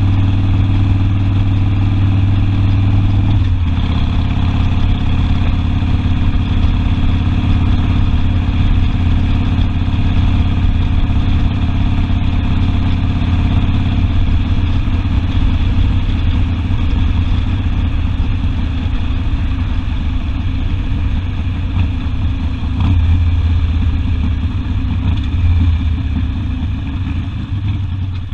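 Harley-Davidson Sportster V-twin engine running under way. Its steady note drops about three and a half seconds in, then carries on as a rough, low rumble.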